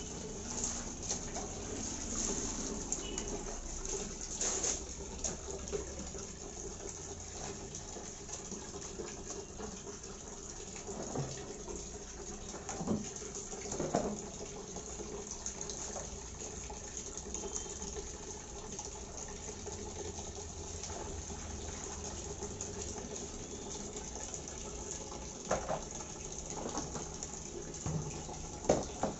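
Water splashing and pouring in plastic basins and a bucket as leafy greens are rinsed and swished by hand, with a few short louder splashes. Near the end a basin of rinse water is tipped out and splashes onto the concrete floor.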